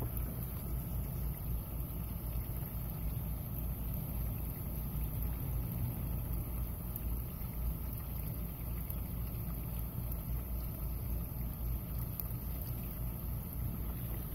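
Steady low outdoor background rumble with a faint high hiss; no distinct bites, clicks or knocks stand out.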